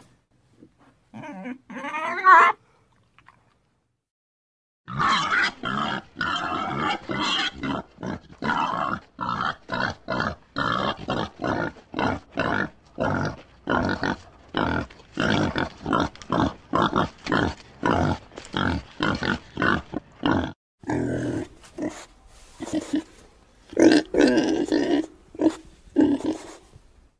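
Domestic pig grunting in a long run of short, evenly repeated grunts, about three a second, after a brief pair of calls and a short silence near the start.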